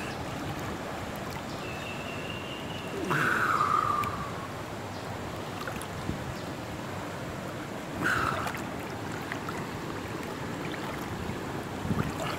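Steady rushing of wind and water around an outdoor swimming pool. Twice, about three seconds in and again about eight seconds in, a sudden short sound falls in pitch; the first is the longer and louder, about a second.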